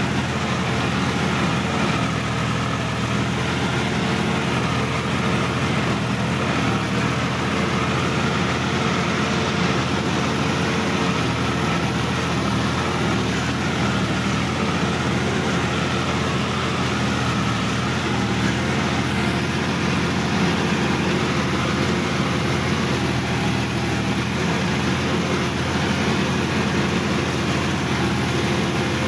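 Sonalika DI-50 RX tractor's diesel engine running steadily as the tractor is driven, with an even, unchanging drone.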